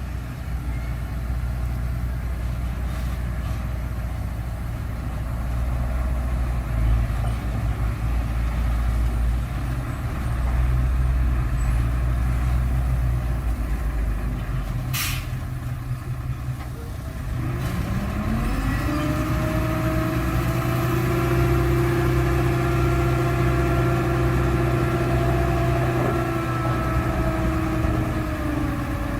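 The diesel engine of a heavy earthmoving machine runs steadily. A single sharp click comes about halfway through, then about 17 seconds in the engine revs up: its pitch rises and holds there, a little louder.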